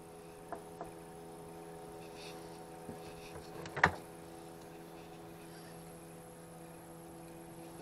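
Fishing tackle being handled in a small boat: a few light clicks, then one sharp knock about four seconds in, over a steady low hum.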